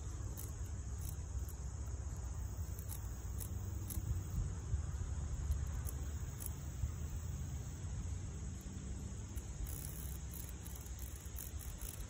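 A steady, high-pitched chorus of insects trilling in the surroundings, with faint irregular ticks above it and a low rumble underneath.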